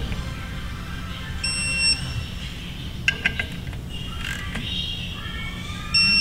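Electronic torque wrench giving a short, high beep twice, about four seconds apart, as bolts reach the set torque, with a few sharp clicks in between.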